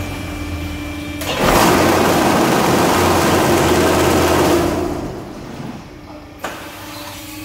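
Vibrator motor of a manual paving-block and batako press switching on about a second in, running loudly for about three and a half seconds, then stopping and dying away.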